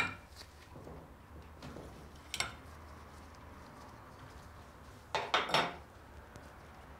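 Metal clinks of a wrench working the shaft nut on a motocross rear shock's damper shaft clamped in a vise. There is one sharp clink about two and a half seconds in and a quick cluster of clinks a little after five seconds.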